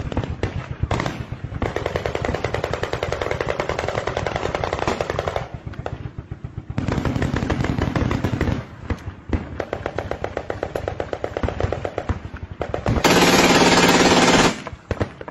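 Automatic gunfire in several long bursts of rapid shots with short gaps between them; the loudest, densest burst comes near the end.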